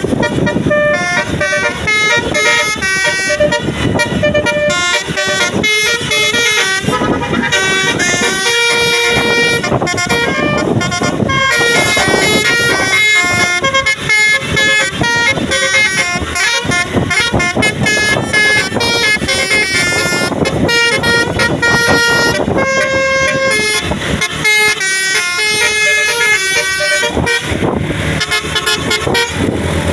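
Indonesian tour bus 'telolet' multi-tone horn playing a quick tune of stepped notes, sounding almost without pause.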